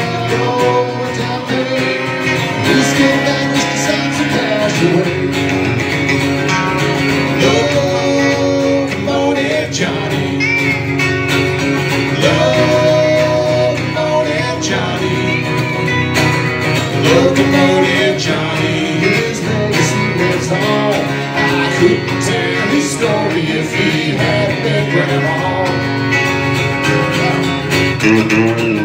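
Live band playing a song: electric guitar and acoustic guitar with a woman and men singing together.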